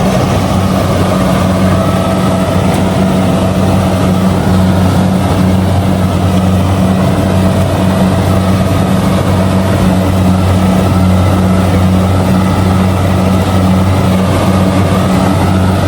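Kubota DC-70G rice combine harvester running steadily while harvesting, a constant low engine drone with machinery noise over it.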